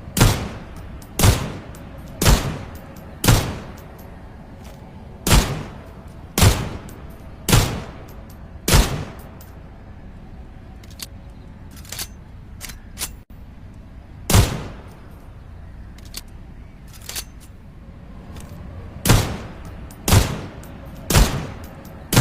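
Salamander pistol sound effect: about a dozen single shots, each with a short ringing tail. They fire roughly one a second in runs of three or four, separated by longer pauses with only faint clicks in them.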